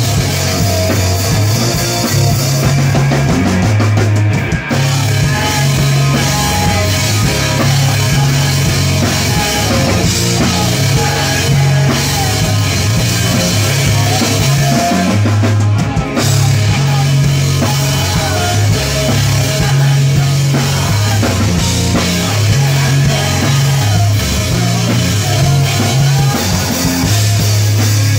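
Live rock band playing dreamy post-hardcore, with drum kit, bass and guitars, loud and dense throughout. The cymbals drop out briefly twice, about four and a half seconds in and again around sixteen seconds.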